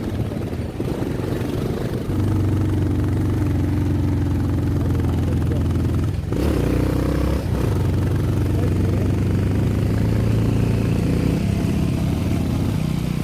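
Motorcycle engine running under steady throttle, with a short drop in sound about six seconds in before it picks up again.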